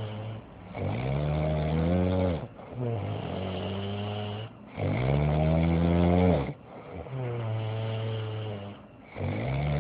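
A sleeping man snoring deafeningly, like a chainsaw: long, pitched rasping breaths of about two seconds each, one after another with short gaps, alternating between a breath that swoops up and down in pitch and one held at a steady pitch.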